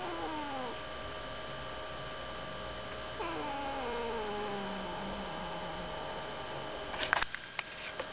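Domestic cat growling: a short falling growl at the start, then a longer one from about three seconds in that slides steadily down in pitch for about three seconds. A few sharp clicks follow near the end.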